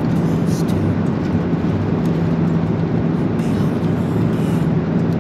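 Airliner cabin noise in flight: a steady rush of air and engine noise with a constant low hum underneath.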